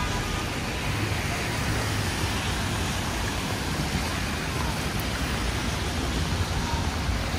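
Heavy rain falling steadily, with city street traffic rumbling underneath.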